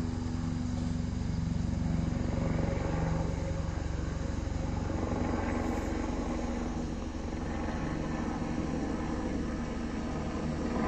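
Helicopter on a heliportage lift flying close by, its rotor beating in a fast, steady chop under the engine's hum.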